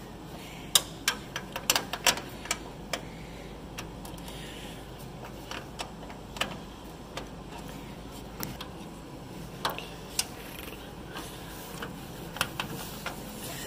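Irregular sharp metal clicks and taps of a wrench working the small 3/8 nuts on a combine console's mounting bracket, with a quick run of clicks in the first couple of seconds and scattered ones after.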